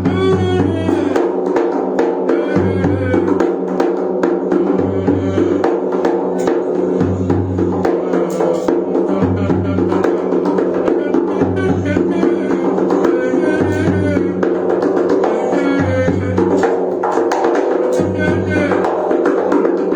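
Instrumental music with drums and percussion, a low bass note recurring about every two seconds under a steady drone, and a wavering high melody line.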